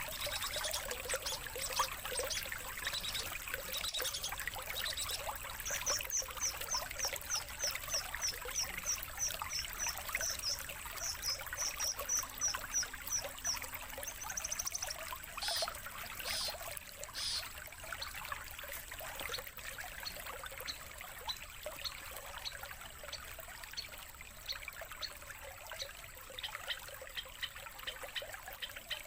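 Songbird calls over a steady trickle of running water: a long run of rapid, evenly repeated high chirps, about three a second, from roughly six to fifteen seconds in, then a few louder notes and fainter scattered chirps.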